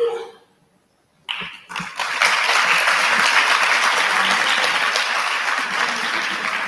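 An audience applauding, starting about a second in after a short silence, building quickly and then holding steady.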